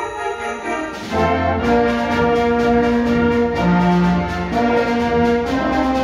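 School concert band playing live, flute in front and brass prominent. A lighter passage gives way about a second in to the full band coming in louder, holding sustained chords over low notes.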